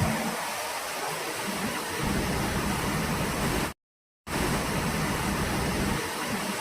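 Flowing water rushing steadily, a dense even hiss. It cuts out to total silence for about half a second just past the middle, then resumes.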